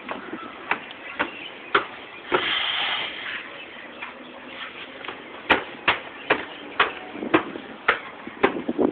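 Footsteps climbing a wooden staircase, each step a sharp knock. A few spaced steps come in the first two seconds, then a steady climb of about two steps a second from about halfway on. A short hiss comes about two and a half seconds in.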